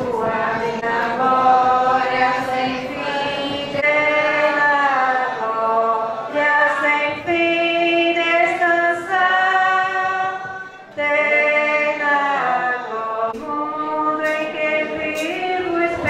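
A group of voices singing a hymn in long held notes that glide between pitches, with a brief break just before eleven seconds in.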